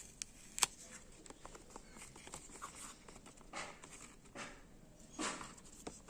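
Faint handling of a cardboard product box and its paper inserts: scattered small clicks and taps, one sharper click about half a second in, and a few soft rustles later on.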